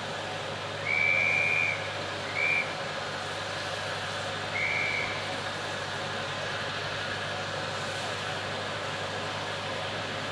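Steady hiss of steam from a standing steam locomotive, cut by three short whistle notes of one high pitch: a longer one about a second in, a brief one just after, and a third at about five seconds.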